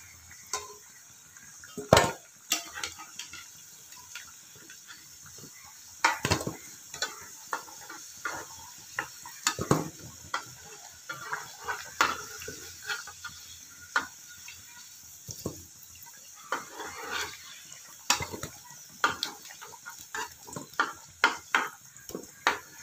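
Spatula knocking and scraping against a kadai as fried potato chunks are lifted out of hot oil: many sharp, irregular clinks over a faint sizzle of frying oil.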